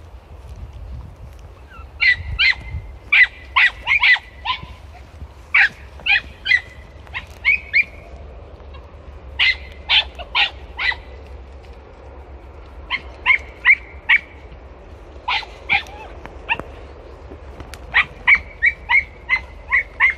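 Young podenco hounds yelping and barking from inside bramble thickets, in short bursts of several sharp, high-pitched yelps every few seconds.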